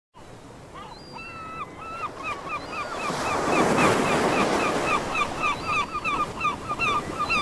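Ocean surf with a flock of birds calling over it in many short, quick calls. The sound fades in from silence and the waves swell about three seconds in.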